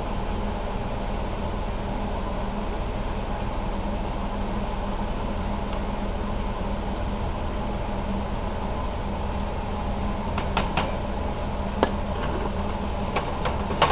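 Steady mechanical hum like a fan running, with a few light clicks and taps in the last few seconds as cucumbers are moved between glass jars.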